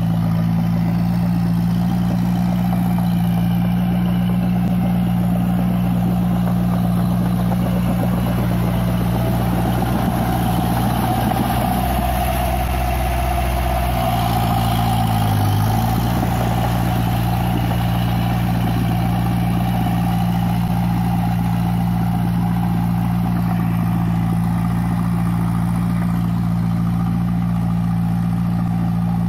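Massey Ferguson 185 tractor's four-cylinder diesel engine running steadily while working a wet rice paddy. Its note wavers and dips briefly about twelve to sixteen seconds in, then settles back to the same steady pitch.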